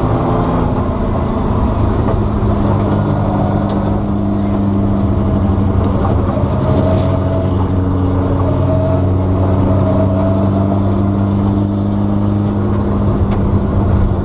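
Bizzarrini 5300 Strada Competizione's 5.3-litre Chevrolet V8 running steadily at an even engine speed, its deep note holding level without revving up or down.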